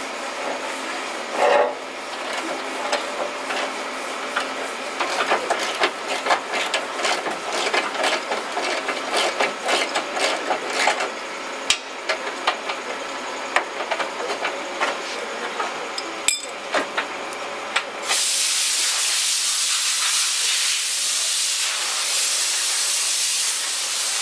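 Ratchet wrench clicking in quick irregular runs as a bolt is turned. About three-quarters of the way in, a steady hiss starts and is louder than the clicking.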